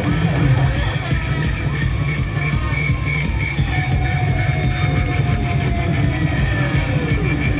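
Live rock band playing at full volume, with a pitched lead line that slides slowly downward in the second half.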